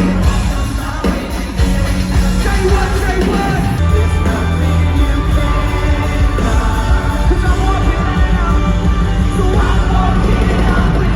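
Music with singing over sustained bass notes.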